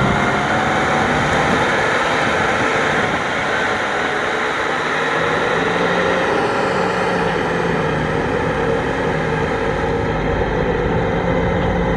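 Kubota M6040SU tractor's diesel engine running steadily under load, pulling a rotary tiller through flooded paddy mud, with the churn of the tiller in the mud and water mixed in.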